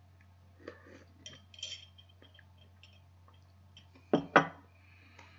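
Tableware clinking while eating: a utensil against a dish or jar, with light clicks and scrapes, then two loud sharp clinks in quick succession about four seconds in.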